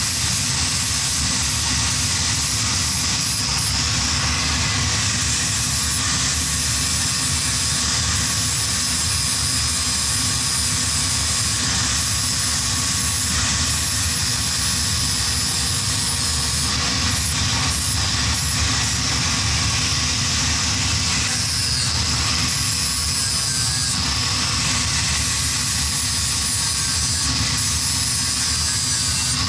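Angle grinder running continuously against the steel tubing of a Simson S51 moped frame, a steady grinding noise with a high whine that sags briefly about two-thirds of the way through.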